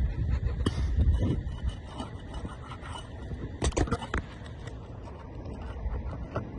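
Asphalt roof shingles being pried apart to break their adhesive seal: scraping with a cluster of sharp cracks and clicks about three and a half seconds in, over a steady low rumble.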